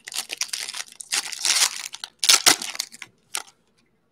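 Foil wrapper of a Panini Mosaic basketball card pack crinkling and tearing as it is pulled open by hand, in irregular bursts, the loudest about two and a half seconds in; it stops shortly before the end.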